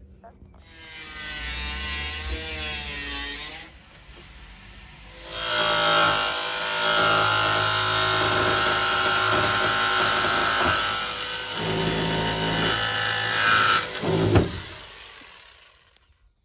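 Handheld power tool cutting through the sheet-steel rear door of a Ford Transit Custom van to make the opening for a window. It runs in two stretches, a short one about a second in and a longer one from about five seconds in, and stops near the end with a sharp knock.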